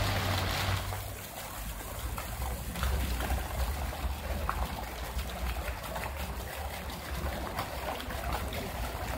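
Fountain jets of water falling back into a pool, a steady splashing with a low rumble underneath.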